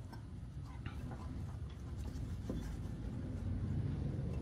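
A low steady rumble with faint scattered clicks and cloth rustling as a rag is pressed and wrapped around an air-conditioning condenser's brass service valve and copper refrigerant line.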